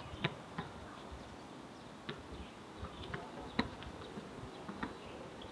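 Outdoor ambience: a steady hiss with several short, sharp knocks and clicks at irregular intervals.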